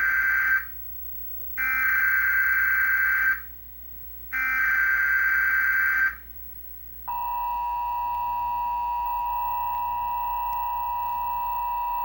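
Emergency Alert System broadcast signal for a flash flood warning. It opens with the SAME digital header: harsh, buzzy data bursts of just under two seconds with short gaps, the last of three already under way at the start and then two more. About seven seconds in, the steady two-tone EAS attention signal begins and holds.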